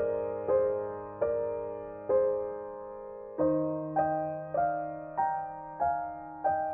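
Background music: slow, gentle piano, single notes struck about every half second and left to fade over held bass notes, with the harmony changing a little past the middle.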